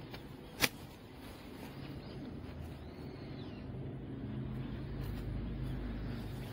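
A single sharp snip of hand scissors closing, just over half a second in, then a car engine's low hum that grows louder from about two seconds in.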